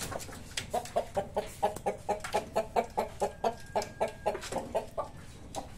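A chicken clucking in a quick run of short notes, about four a second, stopping about five seconds in. The owner takes the birds to be afraid of the unfamiliar dragon fruit set before them.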